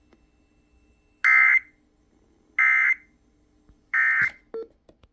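Emergency Alert System End of Message: three short, loud, buzzy bursts of SAME digital data tones, evenly spaced a little over a second apart, closing the severe thunderstorm warning broadcast. A few faint clicks follow near the end.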